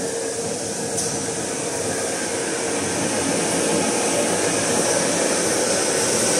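Toilet-roll wrapping machine running: a steady mechanical hum and hiss with a faint held tone, and a single click about a second in.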